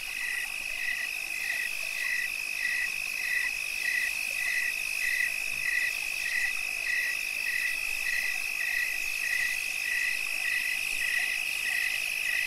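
Crickets chirping at night: a steady high trill with a second regular chirp pulsing about every two-thirds of a second.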